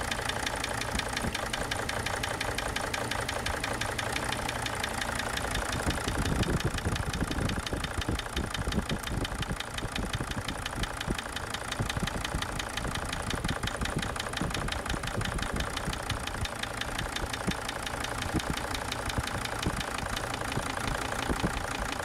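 Mercedes Sprinter five-cylinder diesel engine idling with a steady rapid knock, heard close up in the engine bay, while injector number 2 is unplugged; the sound changes only slightly, a little heavier about six seconds in. The owner takes the persistent knock for a compression problem in cylinder number 2.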